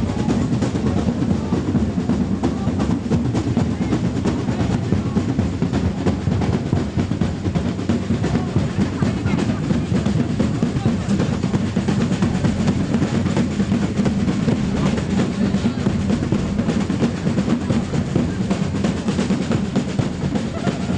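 Marching parade drums, snare and bass drum, playing continuously with dense, rapid strokes.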